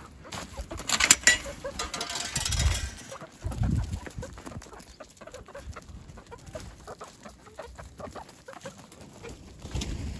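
A flock of backyard chickens clucking softly in short, repeated calls, with a few knocks and some rustling in the first few seconds.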